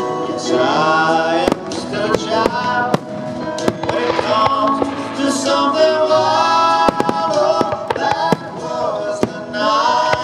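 Music with a singing voice, with fireworks going off throughout in repeated sharp bangs.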